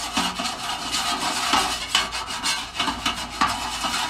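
Metal spatula scraping back and forth across a flat-top griddle, spreading a thin film of oil, in repeated strokes about two a second.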